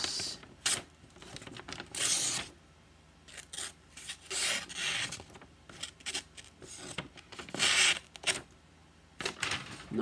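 A thin Wharncliffe-blade folding knife slicing through a hand-held sheet of paper to test the sharpness of its edge. There are three longer hissing slices a couple of seconds apart, with short snicks and paper rustle between them.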